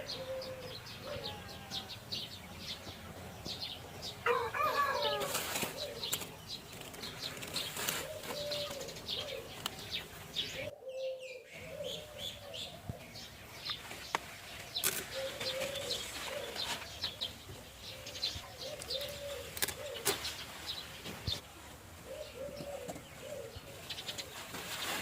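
Doves cooing over and over, low hoots every second or two, with small birds chirping higher above and scattered short rustles and clicks. The sound cuts out briefly about eleven seconds in.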